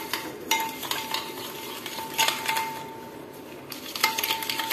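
Metal spoon stirring a grainy mix of instant coffee, sugar and a little water in a glass bowl, scraping and clinking quickly against the glass. The stirring eases off briefly past the middle, then picks up again.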